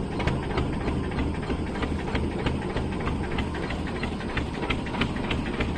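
A fishing boat's engine running steadily, with a constant hiss and a scatter of small irregular ticks over the rumble.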